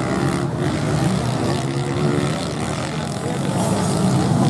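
Racing motorcycle engines running and revving, with people's voices mixed in.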